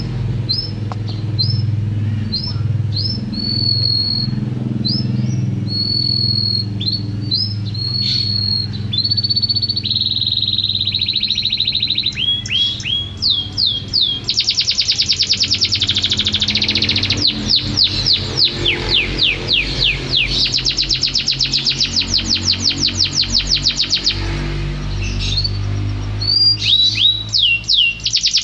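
Domestic canary singing a long, varied song: a string of separate rising whistled notes, then fast rolling trills of rapidly repeated notes from about halfway on. A low steady hum runs underneath.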